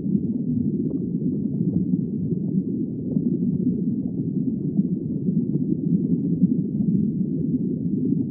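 Steady, muffled low rushing noise of underwater ambience, with nothing in the upper pitches.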